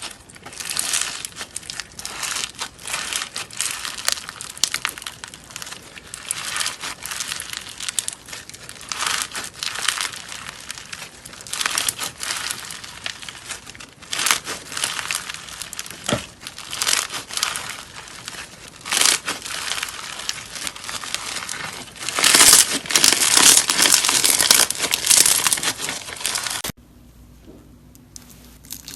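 Slime being poked and squeezed, giving dense crackling, crinkling sounds, loudest about three-quarters of the way through. Near the end it cuts suddenly to a much quieter stretch.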